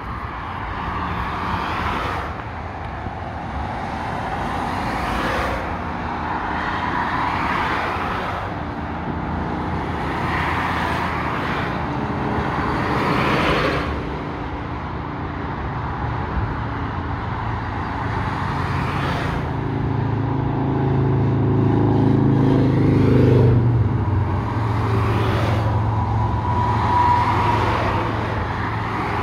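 Interstate highway traffic: cars passing below in a continuous run of tyre swooshes that rise and fall every few seconds. A heavier vehicle's low engine hum builds past the middle and is loudest about two-thirds of the way through.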